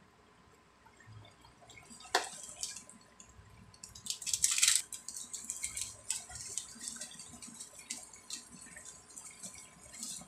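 Sauce bubbling and crackling in a wok around milkfish steaks, with small pops throughout. A sharp click comes about two seconds in, and a louder hiss about four seconds in.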